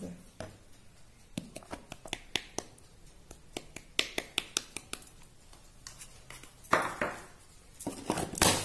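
Quick light taps and clicks of a plastic measuring cup against a mixing bowl as icing sugar is tipped out onto whipped butter, followed by two louder handling noises near the end.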